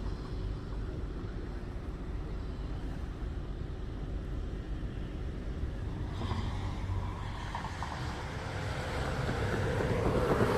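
Steady low rumble of a vehicle, with some wind noise; in the last second or so a louder rushing noise builds up.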